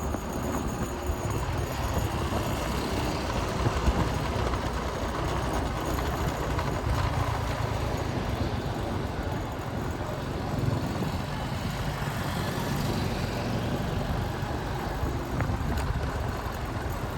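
Steady road traffic: vehicles running past on a roadside with engine rumble and no distinct single event.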